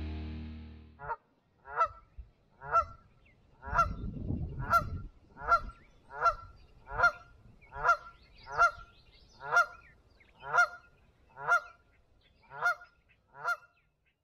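A goose honking over and over, about one short call a second, with a low rumble for about a second and a half near four seconds in. The tail of the outro music fades out in the first second.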